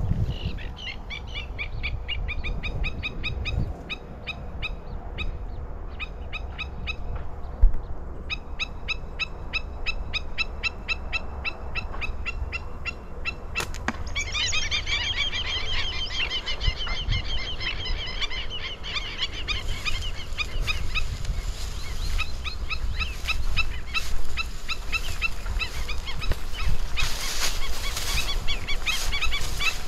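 Birds calling in quick, evenly repeated series of sharp high notes, in bouts several seconds long, over a steady low wind rumble on the microphone. In the second half, crackling and rustling of brush as someone pushes through dry vegetation.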